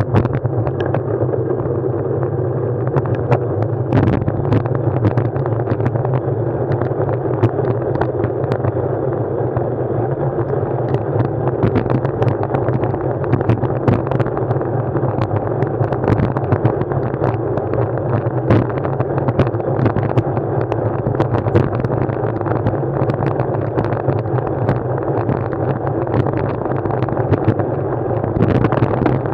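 Steady ride noise picked up by an action camera on the move: a constant low rumble and rush, with many small sharp knocks and rattles throughout.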